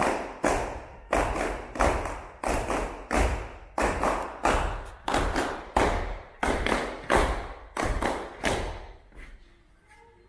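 A steady run of heavy thumps, about one and a half a second, each with a short ringing tail, stopping about nine seconds in.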